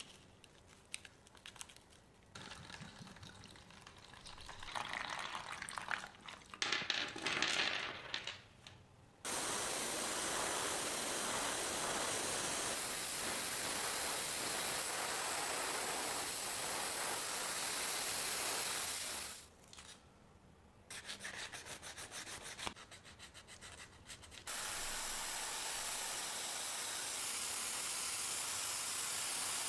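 Scraping and rubbing on a small part for several seconds, then the steady hiss of paint being sprayed. The hiss stops for a few seconds of rapid ticking, then starts again and runs on.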